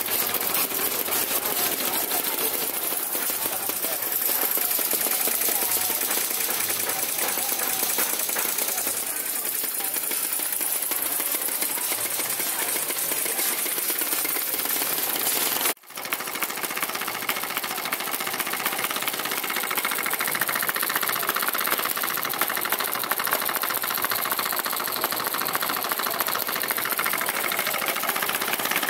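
Small homemade model engines running together with a fast, steady mechanical clatter. The sound cuts out for an instant about sixteen seconds in, then carries on.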